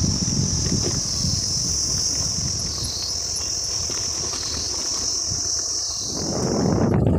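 A loud, steady high-pitched drone of cicadas in the roadside forest, with slight regular swells, over the low rumble of the moving vehicle and wind on the microphone. The insect drone stops near the end as the low rumble grows louder.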